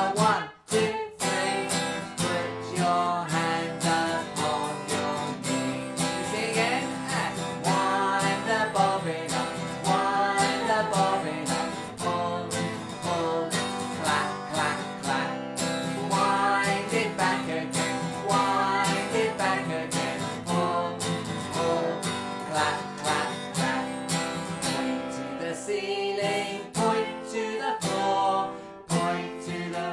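Acoustic guitar strummed in a steady, lively rhythm, with a man and a woman singing a children's action song over it.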